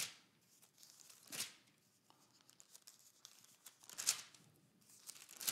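Thin Bible pages being turned by hand: a few brief papery rustles, a second or more apart.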